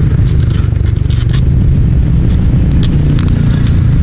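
Steady low rumble of passing road traffic, with a run of short metal scrapes and clicks about a second in and again near three seconds as parts at a motorcycle's rear wheel and disc brake are handled.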